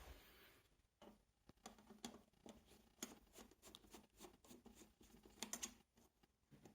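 Faint, scattered clicks and light scraping of a screwdriver and small parts being handled on a TV's metal frame while screws are being removed, with a quick cluster of clicks about five and a half seconds in.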